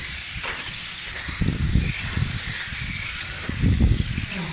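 Electric RC touring cars racing on an asphalt track: the high whine of their brushless motors and gears rises and falls as they accelerate and brake through the corners. Two low rumbles, about a second and a half in and again near the end, are the loudest sounds.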